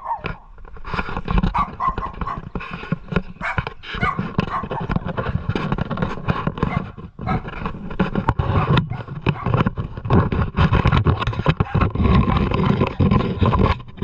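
A dog barking and whining again and again, over a low rumbling noise.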